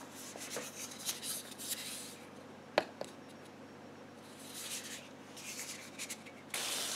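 Avocado oil cooking spray hissing in several short bursts, the last one longer near the end, with a single sharp click a little under three seconds in.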